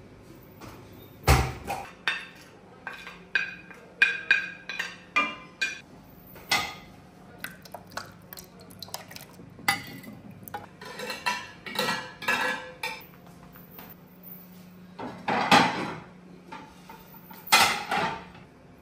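Pots, dishes and utensils clinking and knocking on a kitchen counter in irregular bursts, with a heavy knock about a second in and the loudest clatters near the end.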